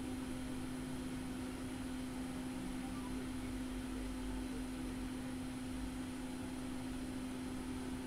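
Steady electrical hum at one pitch over a low, even hiss, from equipment running on the electronics repair bench during soldering.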